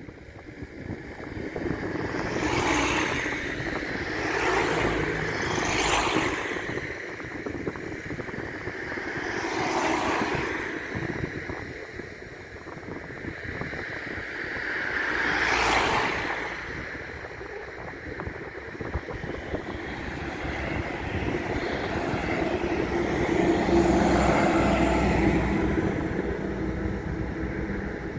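Road vehicles passing close by one after another, each swelling and fading in turn, about five in the first sixteen seconds, with a longer, deeper pass near the end. Wind buffets the microphone throughout.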